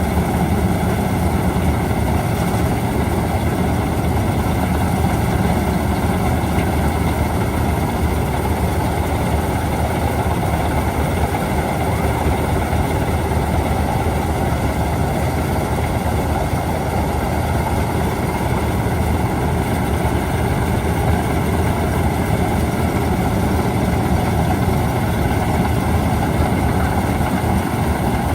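Preet 987 combine harvester's diesel engine running steadily at a constant speed.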